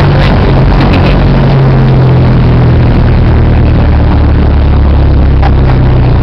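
Engine and road noise of a car being driven, heard from inside it: a loud, steady drone whose engine note drops a little about a second and a half in.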